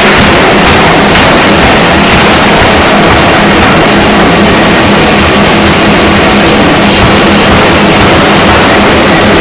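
C41 pneumatic power hammer forging red-hot steel bar into balls: a very loud, steady machine noise with a low hum under it and no separate blows standing out.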